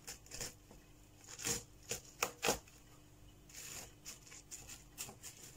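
A plastic plant label is pushed down into a pot of gritty top dressing while fingers shift the grit around it: a string of small crunches, clicks and scrapes, the loudest close together about two seconds in.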